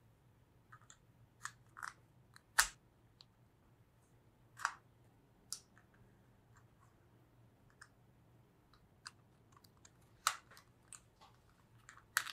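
LEGO Technic plastic parts being fitted together by hand: pins, axles, connectors and beams clicking and snapping into place. Scattered sharp clicks, the loudest about two and a half seconds in, near five seconds, about ten seconds in and just before the end.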